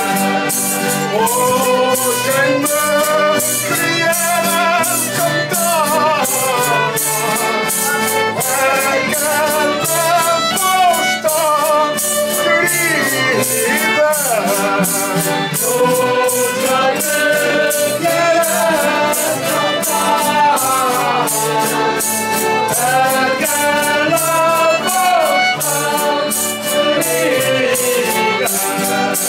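A group of voices singing a folk song together over accordion, with a steady percussion beat.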